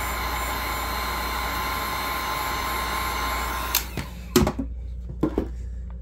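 Heat gun blowing steadily while warming a textured grip wrap, then switched off abruptly a little under four seconds in. A few sharp knocks follow.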